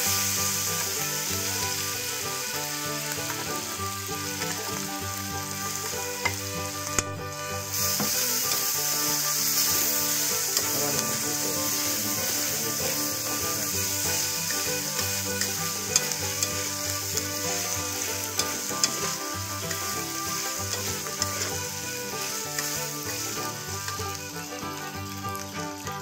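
Eel pieces sizzling loudly in hot oil and chili curry paste in a wok as they are tipped in and stir-fried, with a few sharp clicks of the metal spatula against the wok.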